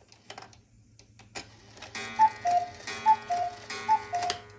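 Mechanical cuckoo clock calling "cuckoo" three times, about a second apart, each call a higher note followed by a lower one. A few clicks from the clock's movement come before the first call.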